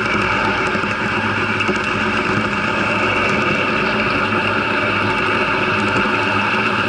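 Model train running steadily along the track as heard from a camera riding on it: an even motor-and-gear hum with several held tones over the rumble of wheels on rail.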